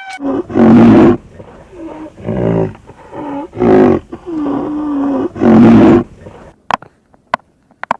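An animal giving a run of about five loud, low calls, one of them long and drawn out, followed by a few sharp clicks near the end.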